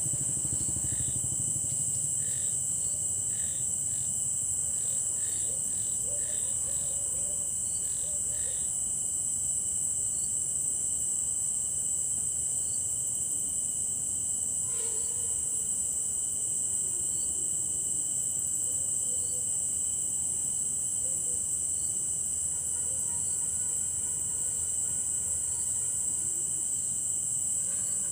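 Night chorus of crickets: a dense, steady high-pitched chirring that does not let up. A second, thinner steady tone runs lower down, and short repeated chirps come in through the first half.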